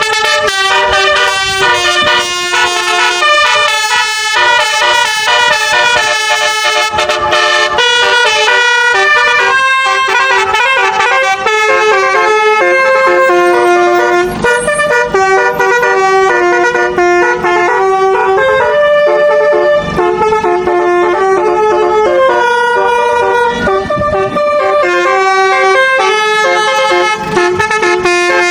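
Basuri telolet musical horn playing a loud, continuous melody, its horn tones stepping quickly from note to note.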